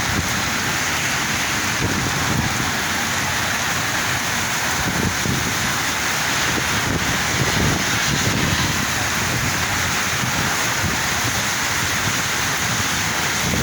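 Heavy rain falling steadily, a dense even hiss, with low uneven rumbling of wind on the microphone.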